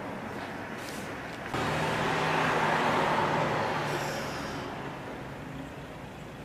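A motor vehicle passing on a road: tyre and engine noise over a steady low hum. It comes in suddenly about a second and a half in, is loudest around the middle, then fades away.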